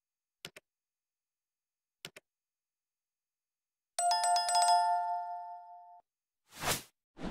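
Edited-in sound effects over dead silence: two faint clicks, then about four seconds in a rapid, loud bell ring like an old telephone bell, which rings out over about two seconds. A short whoosh comes near the end.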